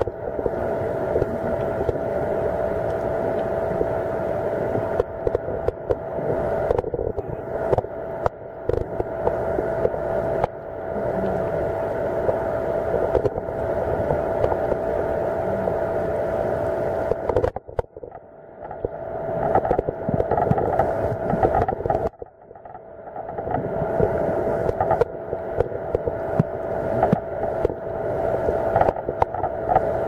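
Muffled underwater sound picked up by a submerged camera: a steady droning hum over water noise, of the kind a distant boat engine carries through the sea. It drops out sharply twice, about two-thirds of the way through, then builds back.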